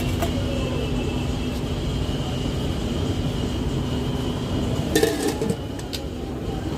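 Busy street background: steady traffic noise with a constant hum, and a short clatter about five seconds in.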